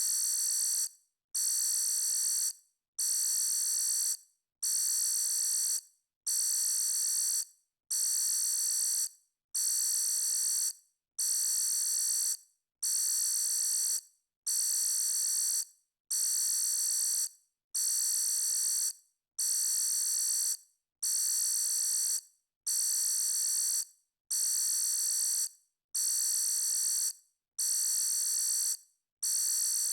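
Electronic alarm sounding: a high-pitched tone held for over a second, then cut off briefly, repeating steadily about every 1.7 seconds.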